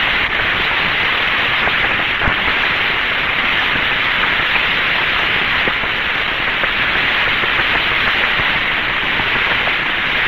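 Steady hiss of radio static on the 1962 Mercury capsule's voice channel, an even noise cut off above the upper speech range, with no voice on the line.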